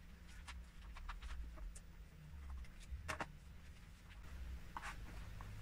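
Small plastic Lego pieces and minifigures clicking and tapping as they are handled on a turntable: scattered light clicks, with a sharper knock about three seconds in, over a low steady hum.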